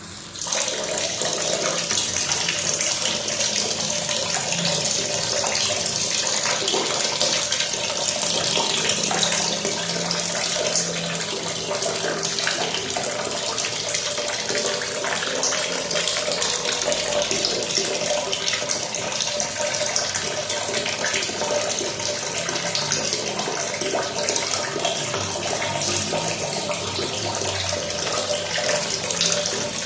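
Running water pouring steadily, a dense even splashing hiss that comes in abruptly right at the start and holds without a break.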